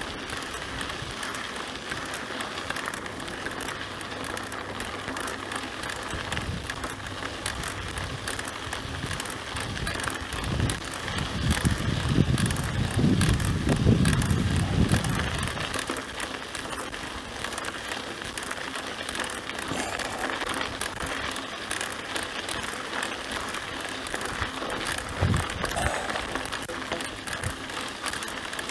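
Mountain bike being ridden on a dirt track: tyre noise and drivetrain rattle, with a louder low rumble for a few seconds near the middle.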